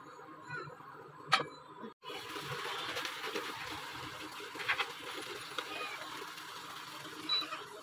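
Fish curry simmering in a pan on the stove, a steady bubbling hiss from about two seconds in. A single sharp click, the loudest sound, comes about a second and a half in.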